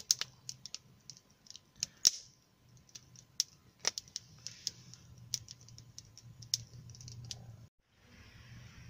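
Small wood fire crackling in a folding metal stove fed with long sticks: irregular sharp snaps, a few louder ones, until the sound cuts off near the end.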